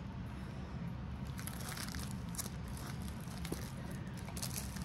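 Faint crinkling and rustling of plastic packaging as a wrapped diamond painting kit is picked up and handled, over a low steady hum.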